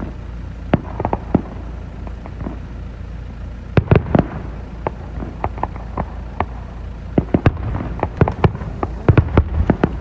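Aerial fireworks bursting: scattered bangs and crackling pops, a cluster about four seconds in, then a quick run of them over the last few seconds.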